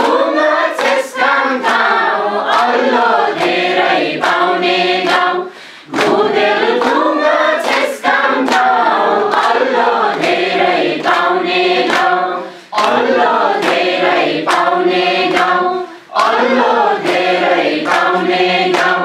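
A mixed group of adults singing a Nepali children's song together, clapping in time.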